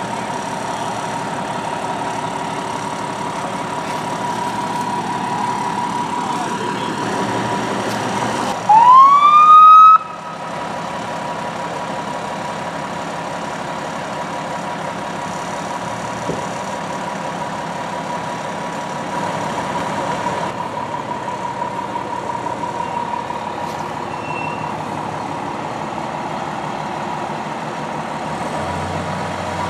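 Emergency vehicle siren giving one short, loud rising whoop about nine seconds in. Under it and around it a steady high tone runs on, over the low rumble of idling engines.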